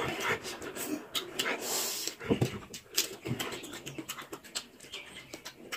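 Close-up wet eating sounds: chewing and lip-smacking with quick breaths, and fingers working through chicken curry, heard as a run of short smacks and clicks.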